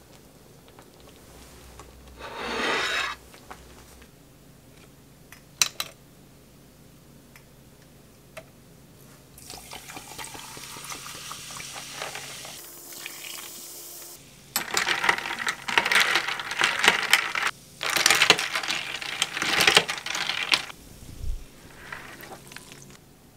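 Sparkling water poured from a bottle into glass mugs full of ice and lime slices, gushing with a steady hiss from about ten seconds in. It is followed by loud fizzing and crackling ice in bursts.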